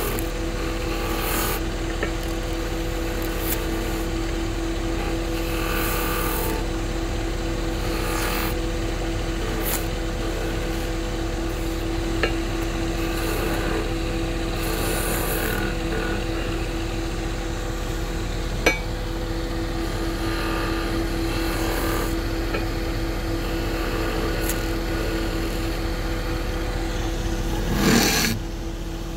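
Wood lathe running with a steady motor hum, while a turning tool cuts the spinning wood in short, irregular scraping passes. A couple of sharp clicks, and a louder scrape shortly before the end.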